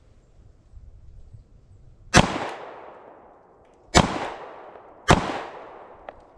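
Three 9mm pistol shots from a SIG P365 XL Spectre Comp, each with a short echoing tail. The first comes about two seconds in, then two more in quicker succession.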